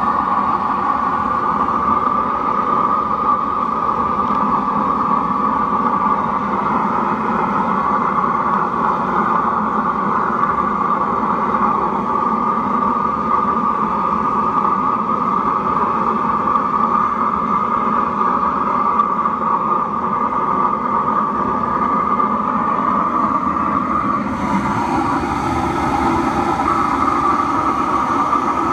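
Burner of a homemade steel-drum metal-melting furnace running flat out, a steady loud rushing with a low rumble under it. About three-quarters of the way through the sound shifts, turning brighter and hissier.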